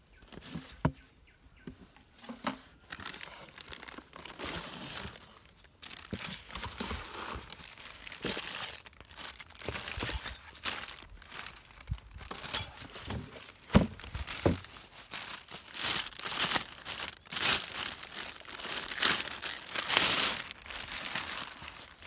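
Clear plastic packaging bags crinkling and rustling in irregular handfuls while a new chainsaw and its parts are unwrapped, with an occasional sharp knock.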